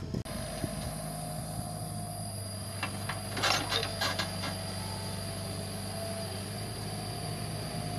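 Komatsu PC75 mini excavator's diesel engine running steadily under work, with a short cluster of knocks and clatter from the working machine about three to four seconds in.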